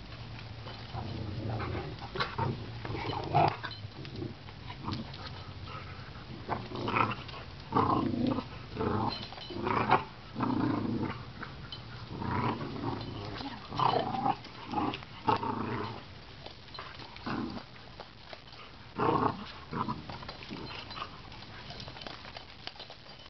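Dogs growling in short, irregular bursts as they wrestle in rough play.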